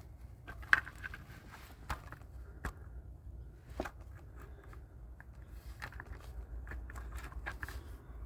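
Scattered light clicks and knocks of handling under a truck, the sharpest less than a second in, over a steady low rumble.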